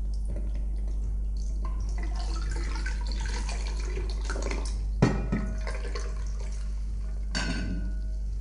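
Lavender lemonade poured from a jug into a tall glass over ice cubes, a splashing pour for about five seconds. Then a sharp knock, the loudest sound, and near the end a short ringing glass clink as the glass is moved.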